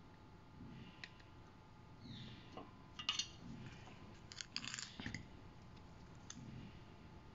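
Faint crackling and sizzling of the flux in 60/40 tin-lead core solder melting onto a twisted wire joint under a soldering iron. The crackle comes in two short clusters, about three seconds in and again around four and a half to five seconds in.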